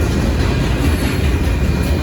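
Union Pacific manifest freight train rolling past at close range: a steady, loud rumble of wheels on rail.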